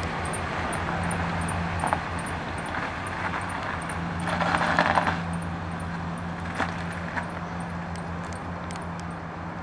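Chevrolet dump truck engine running with a steady low hum as the truck pulls away slowly, fading slightly as it moves off. There is a brief swell of rushing noise about four to five seconds in, and a few sharp clicks.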